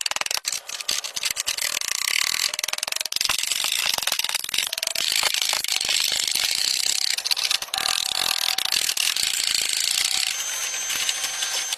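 Workshop tool work: continuous, dense mechanical clicking and rasping, like a hand tool being worked rapidly.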